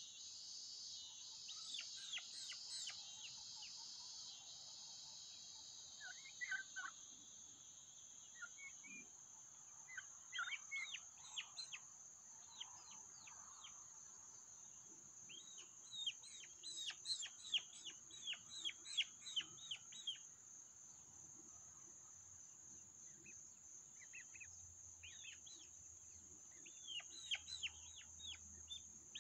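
Young turkeys peeping in quick runs of short, falling whistled notes, several a second, the busiest runs about ten seconds in, in the middle and near the end. A steady high-pitched drone runs underneath.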